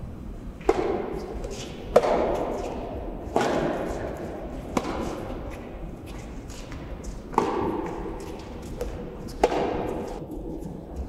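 Soft tennis rally: the rubber ball is struck back and forth by rackets, about six sharp hits spaced one to two and a half seconds apart, each echoing in a large hall.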